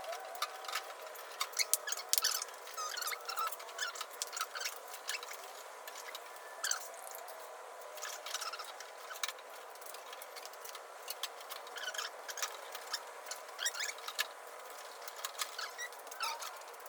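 Scattered light clicks, taps and short squeaks of a car's door glass being handled and worked down into the door shell, glass and metal knocking and rubbing inside the door.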